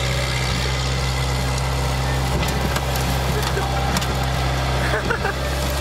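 Car engine idling steadily, with a scatter of sharp knocks and clatter in the middle.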